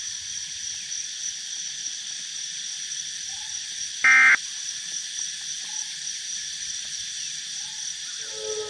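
Dusk nature ambience: a steady, high-pitched chorus of insects, with one loud, short frog croak about four seconds in and a few faint short calls. Near the end, low sustained tones begin to rise.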